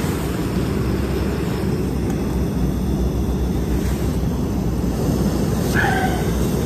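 Small canister gas stove burner running steadily under a pot of water, a constant low rushing hiss, heating the water to the boil.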